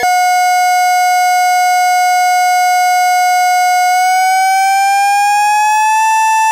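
A single held electronic tone from an Amiga demo soundtrack, bright with overtones. It holds steady for about four seconds, then slides smoothly up in pitch and holds the higher note.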